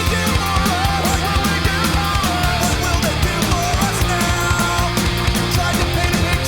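Instrumental rock-style soundtrack music with a steady, driving drum beat.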